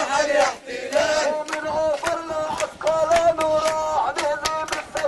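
Voices chanting together in long held, stepping notes, with sharp percussive hits struck again and again among them.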